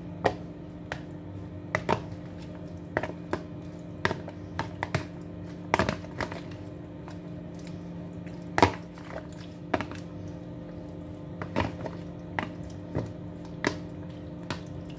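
A metal spoon stirring raw chicken pieces in a wet cornflour marinade, clicking and scraping against the sides of a plastic container in irregular strokes, about one or two a second, over a steady low hum.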